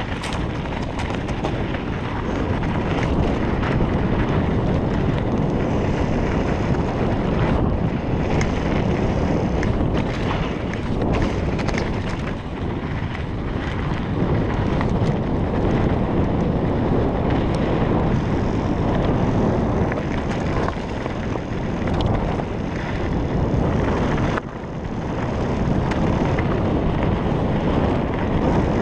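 Wind buffeting the microphone over the rumble of a Kona Process 134 mountain bike's tyres rolling down a sandy, rocky dirt trail, with frequent clicks and rattles from the bike over the rocks. The noise drops briefly about 24 seconds in.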